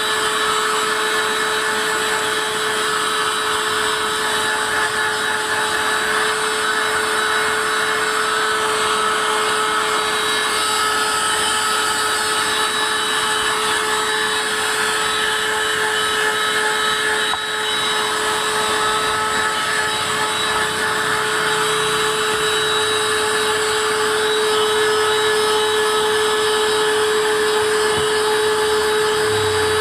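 Small battery-powered handheld car vacuum cleaner running steadily: a constant motor whine over the hiss of rushing air, dipping briefly once about halfway through. It is being used on a dirty car carpet.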